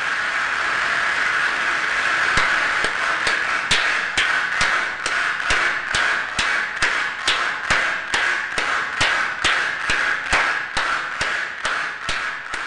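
Computer-synthesised audience applause, a dense wash of many hand claps, with live hand claps over it. About two seconds in it settles into steady rhythmic clapping at about two and a half claps a second, the synthetic clappers falling into time with the live clapper like an audience clapping for an encore.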